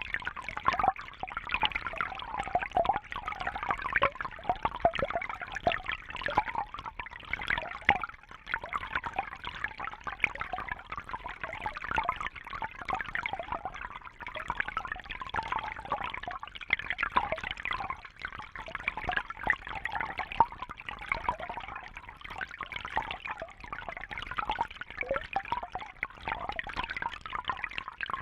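Babbling brook: shallow water trickling and bubbling continuously over stones, with many small gurgles and splashes in a steady stream.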